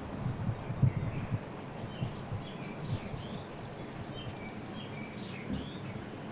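Small birds chirping in a scattered early-morning chorus: many short, quick chirps and sliding notes, thickest through the middle. Low thuds and rumble sit underneath, with one louder knock about a second in.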